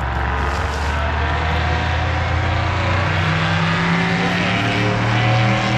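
A truck passing on a nearby road: a steady engine drone with tyre noise, its engine note rising and the sound swelling toward the end.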